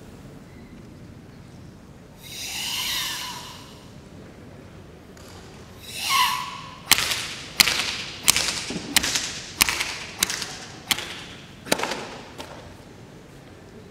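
Two long, forceful hissing exhalations of Sanchin kata breathing, the second ending in a throaty tone. They are followed by a string of about nine sharp slaps, roughly one every two-thirds of a second: open hands striking the performer's bare torso, shoulders and back in Sanchin shime testing.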